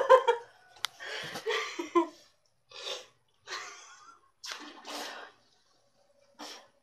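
A person coughing and spluttering in a series of harsh, breathy bursts, hacking out a mouthful of dry cinnamon powder after failing the cinnamon challenge. A sharp click comes a little under a second in.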